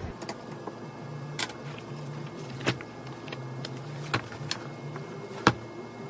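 Quiet background music with a slowly stepping low line, broken by a handful of sharp, irregular clicks and taps, the last one the loudest.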